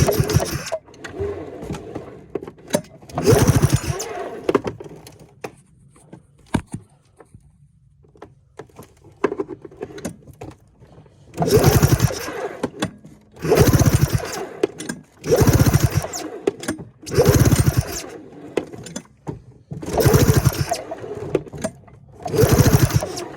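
Arctic Cat 580 snowmobile's two-cylinder two-stroke engine cranked over by its recoil pull cord, about eight short pulls with pauses between, turning over without starting. This is a spark check on the left cylinder, which has not been firing.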